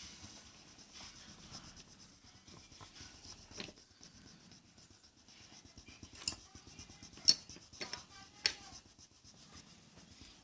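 Drawing strokes rubbing and scratching on paper, irregular and faint, with three sharp clicks in the second half.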